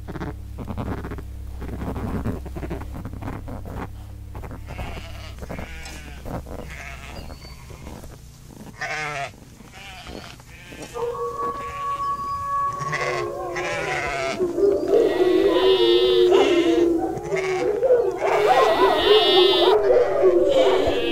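Sheep bleating: many overlapping, wavering calls that start about halfway through and build up, getting louder toward the end. Before them comes a run of light taps over a low hum.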